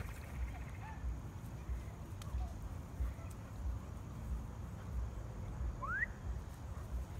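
Outdoor ambience: uneven low rumbling with a few faint short chirps, and one clearer rising chirp about six seconds in.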